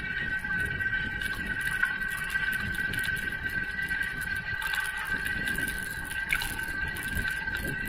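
A bicycle riding fast on a concrete path: uneven wind rumble on the microphone and road noise, under a steady high whine that holds one pitch throughout.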